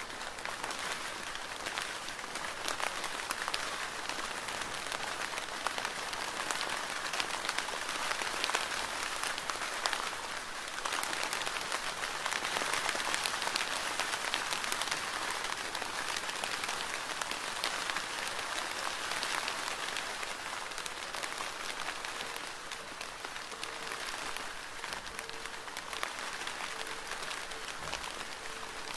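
Heavy rain falling steadily: a dense, even hiss of countless small drop impacts, a little heavier from about ten seconds in.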